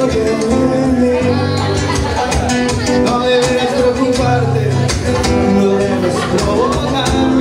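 Live Latin-style music: an acoustic guitar strummed in a steady rhythm over held low bass notes, with a voice at times.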